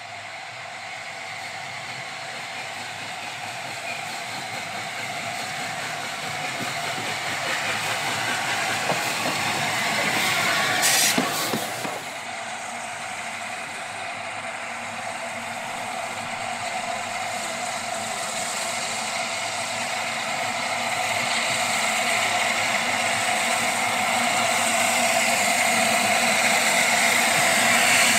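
LNER A4 class three-cylinder Pacific steam locomotive 60007 Sir Nigel Gresley drawing nearer with its train, a steady sound of working steam and hiss growing louder. There is a brief loud burst about eleven seconds in; then the sound drops and builds again as the engine approaches once more.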